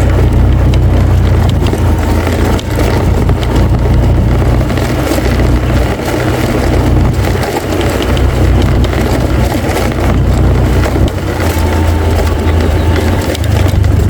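A motor engine running steadily and loudly up close, with a constant low hum.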